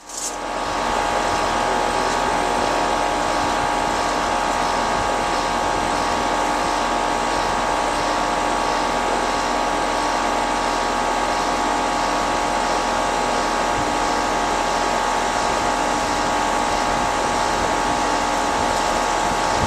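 American-Standard air-conditioning condenser starting up after a refrigerant line repair: compressor and outdoor fan come on suddenly and run steadily, a loud hum with a held whine.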